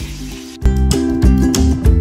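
Background music with a steady beat; a heavy bass comes in about half a second in.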